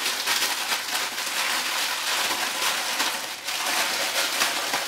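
Clear plastic packaging crinkling and rustling steadily as it is handled and pulled open.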